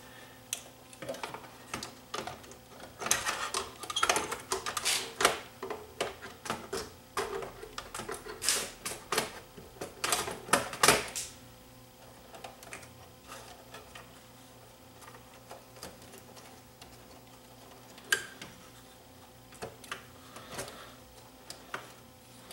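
Clicking and rattling of a DAT recorder's metal tape mechanism and its wiring harness being handled as the wires are tucked into place. The clicks come thick and fast for about the first eleven seconds, then only a few scattered clicks.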